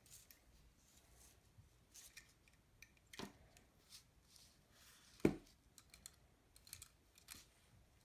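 Faint clicks and taps of hands handling a wooden prop rifle stock, metal D-rings and a leather strap, with a small knock about three seconds in and a louder knock about five seconds in.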